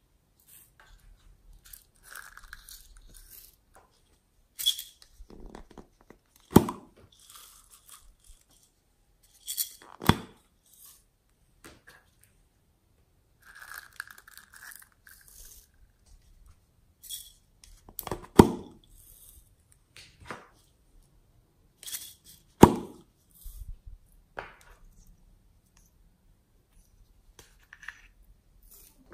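Small plastic jars of glitter being handled: several sharp clicks and knocks spread through, with soft rattling and rustling between.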